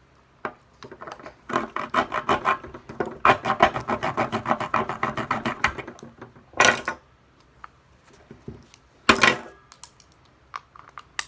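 A tool scraping and working at a hard plastic bath toy: a run of quick, rapid scraping strokes, then two louder single scrapes a couple of seconds apart, and a sharp click at the end.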